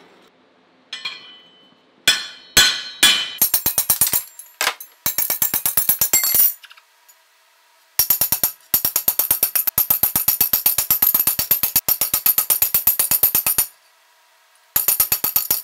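Rapid runs of hammer blows on a steel bar over an anvil horn, each strike ringing with a bright metallic tone. There is a short burst of strikes about two seconds in, then a faster run. A long steady run follows after a pause of about a second and a half, and one more run starts near the end.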